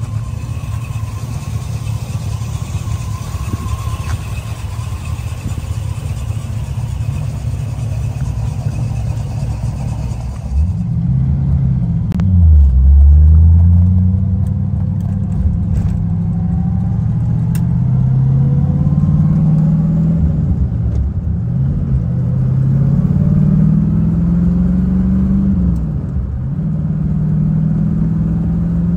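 1973 Chevrolet Corvette's V8 engine running. For the first ten seconds it is a steady rumble with hiss. Then it gets louder and its revs rise and fall several times, as when the car accelerates and shifts.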